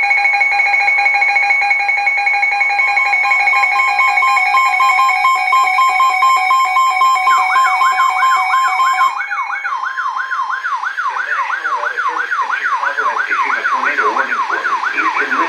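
Weather radio emergency alert: a loud steady alert tone runs for about nine seconds, then stops. Over its last seconds and on to the end, a siren-like tone sweeps upward over and over, about twice a second.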